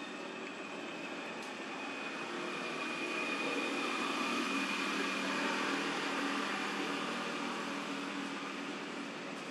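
A steady mechanical drone with a low hum and a thin high whine, growing louder a few seconds in and easing off again near the end.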